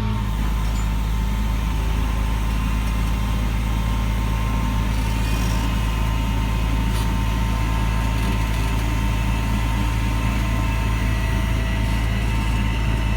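Tow truck's engine running at a steady pace, a constant heavy low rumble with a faint steady whine over it.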